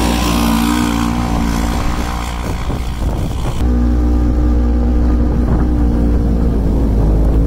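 Polaris RZR 900 S side-by-side's parallel-twin engine running at steady revs while it drifts through snow. For the first three and a half seconds a loud hiss of spraying snow rides over the engine. After that the hiss stops and a heavy low wind rumble on the microphone takes over beneath the engine.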